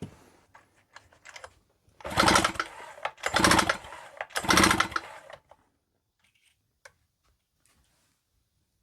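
A power driver runs in three short bursts, under a second each, backing out the screws that hold the chainsaw's recoil starter cover. Light clicks of handling parts come before and after.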